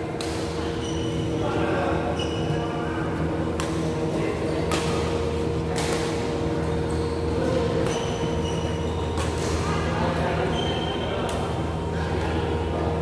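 Badminton rackets striking a shuttlecock in a rally: sharp cracks about every second or so, with short squeaks of shoes on the court mat between them, over a steady low hum in the hall.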